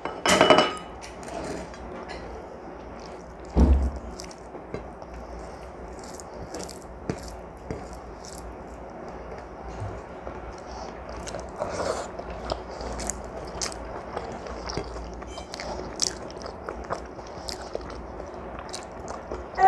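A person eating rice and fritters with her fingers from a plate: chewing and biting, with small scattered clicks of fingers working the food on the plate, and one thump about four seconds in.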